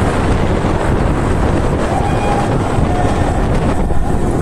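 Wind buffeting the microphone of a phone carried by a cyclist riding through a road tunnel: a loud, steady rumbling noise.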